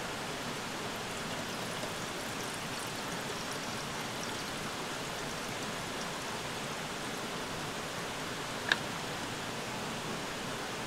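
Steady hiss of running water, with one sharp click about nine seconds in.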